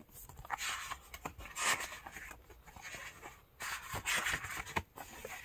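A paperback picture book being handled: several soft rustles and scrapes of paper and cover.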